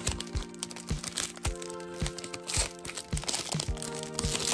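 Background music with a steady beat, with the crinkling of a plastic candy package being handled and its film lid peeled open, loudest about two and a half seconds in.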